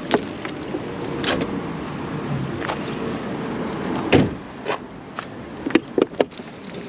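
Clicks and knocks of a car door and gear being handled at a parked car, the loudest knock about four seconds in.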